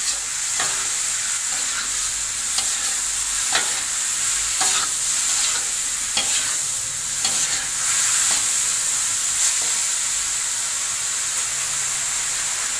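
Straw mushrooms and chillies sizzling steadily in hot oil in a wok while a metal spatula scrapes and knocks against the pan about once a second as they are stirred. The stirring stops near the end, leaving only the sizzle.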